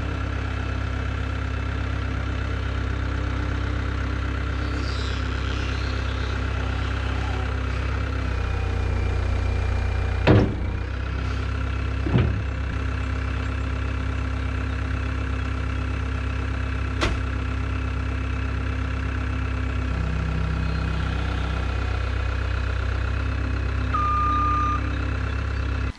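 Caterpillar 246B skid steer's diesel engine running steadily as the machine is driven into position, its note shifting slightly with the throttle. A couple of knocks are heard partway through, and a short beep near the end.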